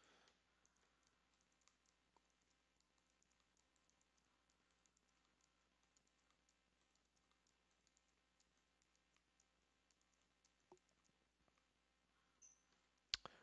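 Faint computer keyboard typing, a scatter of light key clicks through the quiet, with one louder click near the end.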